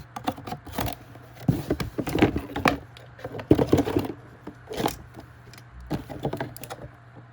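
Irregular clicks, knocks and rustling as a boxed LED clamp light and its parts are handled and taken out of the packaging.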